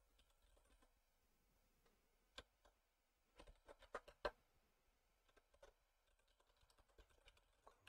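Faint computer keyboard typing: scattered single keystrokes, with a quick run of several keys about three and a half to four and a half seconds in.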